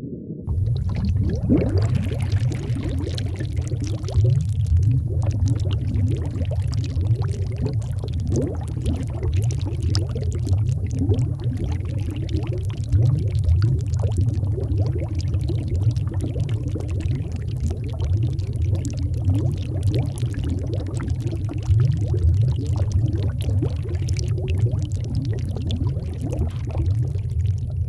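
Underwater bubbling: a constant stream of bubbles gurgling and crackling over a deep, steady rumble of water.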